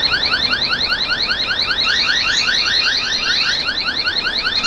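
Eufy Cam 3C security camera's built-in siren sounding: a loud, fast electronic whoop of rising sweeps repeated several times a second. It has been set off by the camera's motion sensor.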